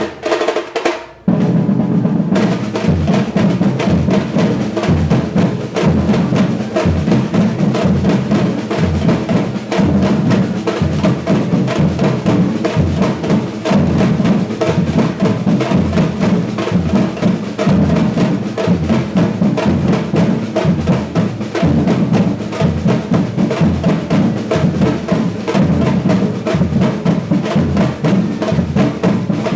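Brazilian batucada percussion ensemble playing full out, with the low surdo drums beating a steady pulse under snare drums and other percussion. Near the start the drumming drops off for about a second, then the whole group comes back in.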